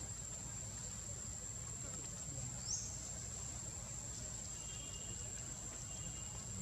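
Steady, high-pitched insect drone over a low outdoor rumble. About two and a half seconds in there is one short rising squeak, and faint high chirps follow near the end.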